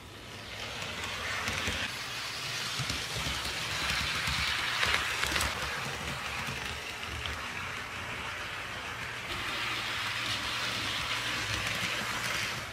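HO scale model freight train rolling past on sectional track with plastic roadbed laid on a wooden floor: a hissing rush of metal wheels on rail that grows louder as the train comes by, is loudest about five seconds in, eases, and swells again near the end.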